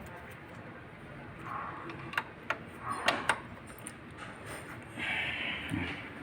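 Scattered light clicks and knocks with a few short scraping or rustling noises, like parts or tools being handled.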